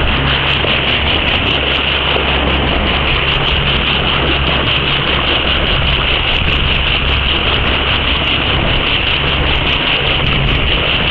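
A boat's engine running steadily under way, a low even hum beneath the loud, constant rush of water along the hull.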